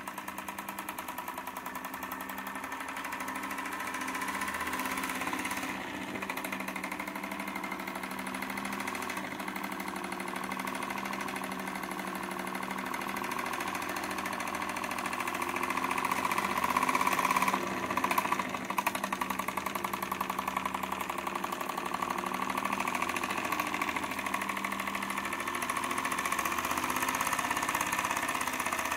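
Wilesco D20 model stationary steam engine running under steam: a fast, even rhythm of exhaust beats and mechanical clatter, swelling slightly partway through.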